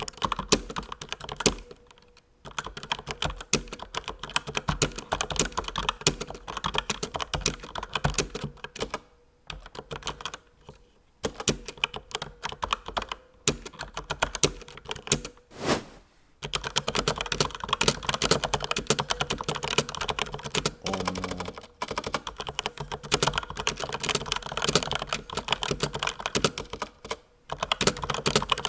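Razer BlackWidow V3 mechanical keyboard with Razer Yellow linear switches being typed on in fast runs of keystrokes, broken by several short pauses.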